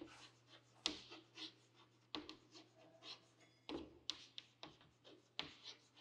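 Chalk writing on a chalkboard: faint, irregular taps and short scratchy strokes as letters are written, over a steady low hum.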